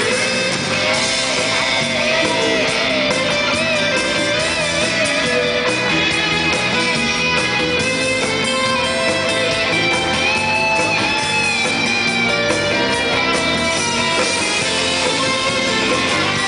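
Instrumental passage of a romantic pop song played by a band: a guitar carries a wavering melody over strummed chords and a steady beat.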